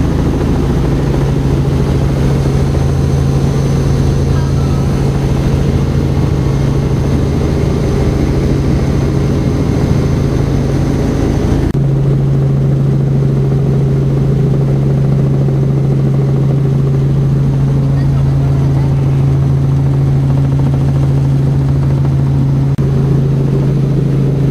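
Helicopter engine and rotor noise heard from inside the cabin in flight: a loud, steady drone with a strong low hum. About twelve seconds in, the hiss above it drops away abruptly while the hum carries on.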